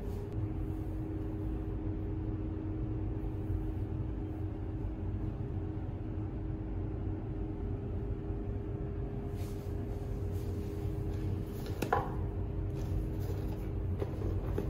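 Steady low room hum with two steady tones, typical of a running ventilation fan. About twelve seconds in there is a single sharp click, and near the end a few light taps as a hand handles makeup pouches on a marble counter.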